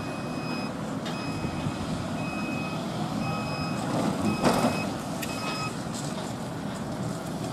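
Forklift's warning beeper sounding a string of short high beeps, about one a second, over the low running noise of the truck. A louder clatter comes about four and a half seconds in.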